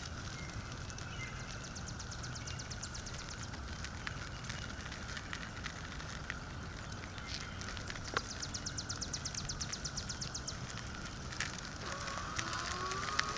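Ecotric Seagull 48 V 500 W electric bicycle being ridden: the freewheel ticks rapidly in two stretches while coasting, over steady rolling noise. Near the end a rising whine comes in as the bike picks up speed under motor assist.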